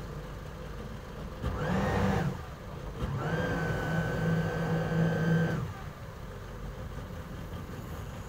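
A boat's engine idling low and steady, given two short bursts of throttle while it is eased in to dock: a brief rev about a second and a half in, then a longer one from about three seconds in, held for about two and a half seconds with a steady whine over the engine note.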